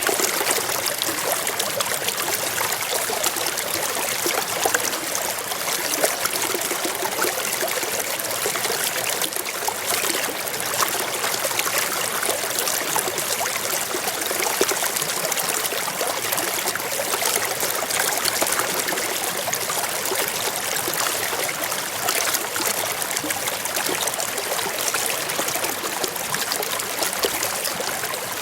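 Small stream running over rocks: a steady rush of water with fine trickling and splashing.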